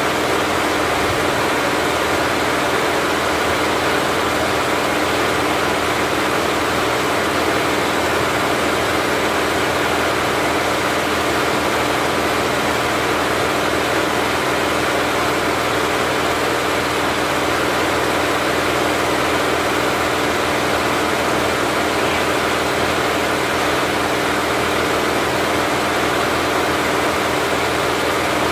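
Richpeace 20-head flat embroidery machine stitching at 1200 RPM: all heads running together in one loud, steady mechanical drone with a constant hum, unbroken throughout.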